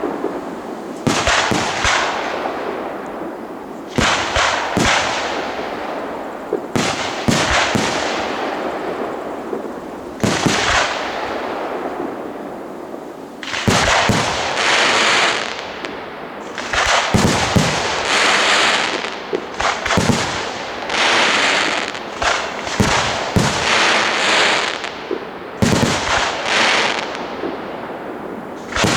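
Professional aerial fireworks display: shells bursting in sharp bangs that echo and fade away. From about halfway the bursts come thicker, with long spells of dense crackling between the bangs.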